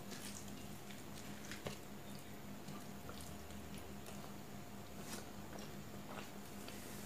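Close-up eating sounds: fingers squishing rice and chicken-and-egg curry on a plate, with soft wet mouth chewing and small lip-smacking clicks scattered through. A faint steady hum runs underneath.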